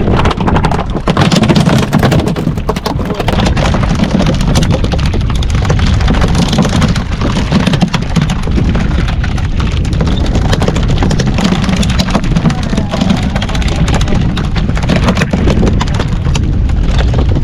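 Fishing boat's engine running steadily at sea, a loud low rumble with scattered clicks and knocks throughout.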